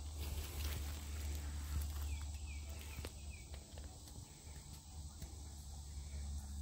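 Woodland ambience: a steady low rumble with scattered faint clicks, and a few short faint bird chirps about two to three seconds in.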